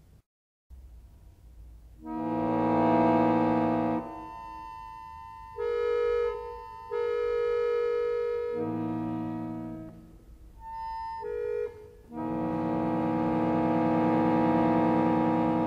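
Solo accordion playing sustained chords and held notes. A loud chord swells about two seconds in, thinner held notes follow, and a long held chord begins about twelve seconds in.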